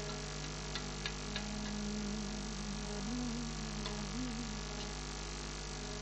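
A low steady hum under faint held tones, with a few soft clicks about a second in and a faint wavering tone through the middle.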